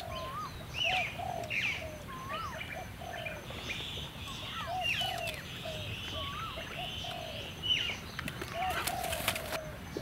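Birds calling and chirping: short whistled notes, many of them rising and falling in pitch, repeated over and over. A steady higher buzzing trill runs through the middle, and a few sharp clicks come near the end.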